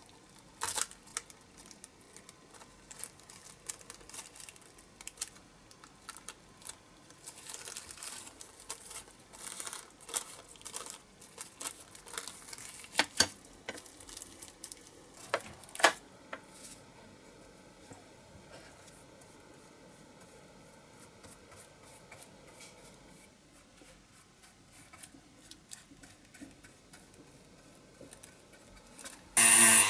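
Clear plastic sheet crinkling and small metal clicks as a die-cast toy car's metal baseplate and a small hand tool are handled. Then a quieter stretch of soft scrubbing as a brush works the baseplate. Just before the end a small high-speed rotary tool starts with a loud whine.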